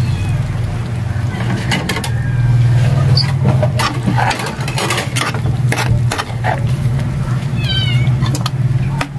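Stray cat meowing near the end, over a steady low hum. A metal ladle scrapes and clinks in a steel wok several times.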